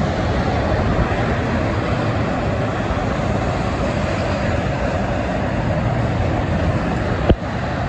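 Steady noise of dense highway traffic, with tractor-trailers and cars passing below and their tyres and engines blending into one continuous rumble. A single sharp click comes near the end.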